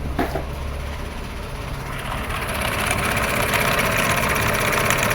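A 2005 Toyota Passo's petrol engine idling very low, with no fast idle after a cold start. A hissing noise grows louder about two seconds in.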